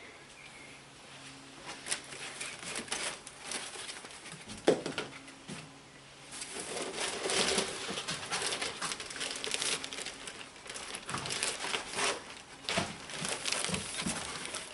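Wheel packaging crinkling and rustling as it is handled, with a few scattered knocks; sparse at first, then busier from about six seconds in.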